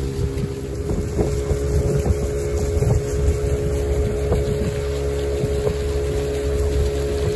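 Motorboat engine running steadily at cruising speed, a constant droning hum with a steady pitch.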